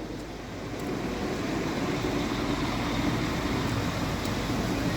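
Northern Class 195 diesel multiple unit approaching. It makes a steady engine and running noise that grows a little louder over the first couple of seconds and then holds.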